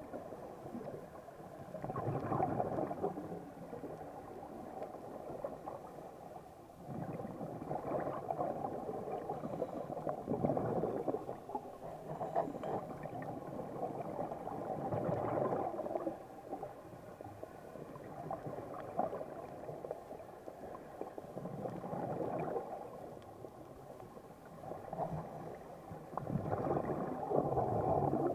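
Muffled underwater sound heard through an action camera's waterproof housing: scuba regulator exhaust bubbles gurgling in louder surges every few seconds as the diver breathes out.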